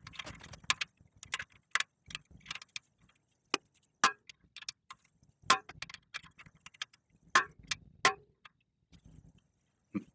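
Irregular metallic taps and clinks, with a few sharp louder strikes among them: hammer and tool work on the stuck wedge bolt of a Cannondale tandem's eccentric bottom bracket, trying to knock it free.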